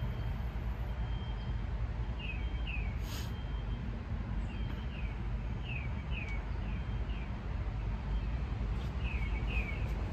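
A songbird calling in short, falling chirps, mostly in twos or threes, repeated every second or two over a steady low rumble.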